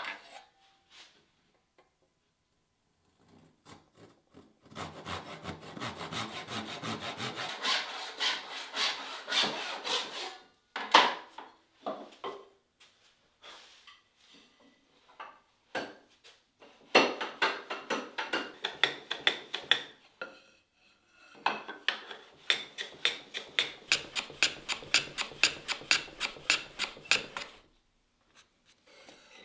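Hand plane shaving walnut on a shooting board, in three runs of quick, even strokes with short pauses between them.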